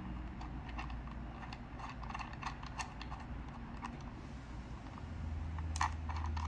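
Light metallic clicks and taps, irregular and a few a second, as the small supplied tool tightens the metal clamp brackets of bicycle mirrors on the handlebars, with one sharper click near the end. A low hum comes in about five seconds in.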